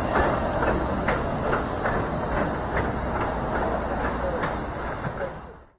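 Saddle-tank steam locomotive 'Repulse', a Hunslet Austerity 0-6-0ST, moving slowly with steam hissing and faint irregular knocks. The sound fades out near the end.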